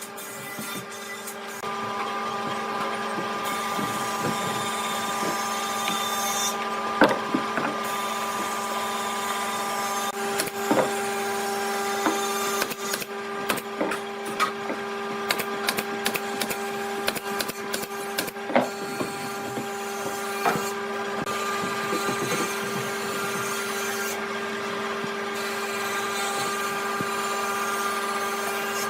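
An electric woodworking power tool runs steadily with a constant motor whine as it works wood, with frequent sharp clicks and knocks from the wood and handling. The whine grows louder about two seconds in.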